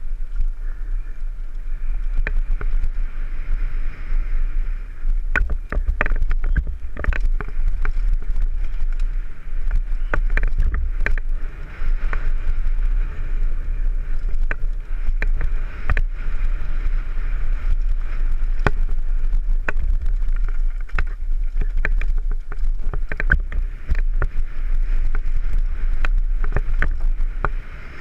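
Mountain bike descending a dirt and gravel track, recorded from a helmet camera: steady wind rumble on the microphone and tyre hiss, with many sharp clacks as the bike rattles over bumps.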